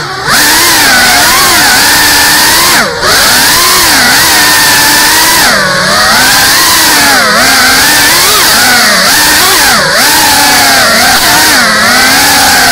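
GEPRC CineLog35 cinewhoop's brushless motors and ducted propellers whining, the pitch swooping up and down constantly as the throttle is worked in fast flight. The sound drops out briefly near the start and about three seconds in, as the throttle is chopped.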